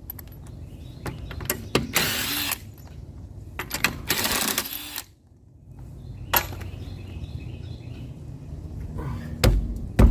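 Power impact wrench running in two bursts of about a second each, spinning the lug nuts off a Hyundai Sonata's rear wheel. Near the end come two heavy thuds as the stuck wheel is knocked loose.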